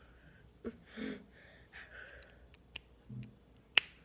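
Small Lego plastic pieces being handled and pressed together: two sharp clicks, the second and louder about a second before the end, with soft nasal breathing in between.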